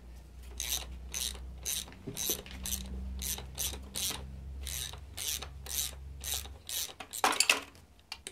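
Hand ratchet clicking in quick, even strokes, about three a second, as it spins exhaust manifold nuts off the studs of a BMW M52TU/M54 cylinder head. The nuts are coming off nicely. A louder burst of clicks comes near the end.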